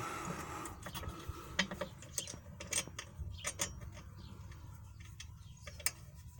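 Scattered light metal clicks and clinks of shock-mount bolts, lock washers and nuts being handled and fitted by hand, with a brief scrape at the start.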